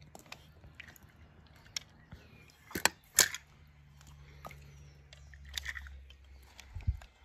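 Small objects being handled: scattered light clicks and knocks, with two louder clicks about three seconds in and a dull thump near the end.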